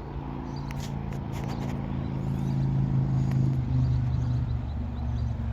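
A vehicle engine running steadily, growing louder through the middle and easing a little near the end. A few light clicks come about a second in.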